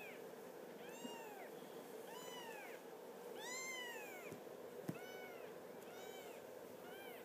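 Two-week-old kittens mewing: about six thin, high mews, each rising then falling in pitch, roughly one a second, the loudest midway.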